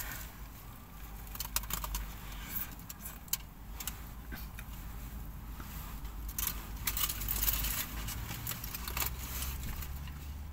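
Eating noises close to the microphone: a takeaway burger being bitten and chewed, with food wrapping rustling. These make an irregular run of crackles and clicks that is busiest past the middle.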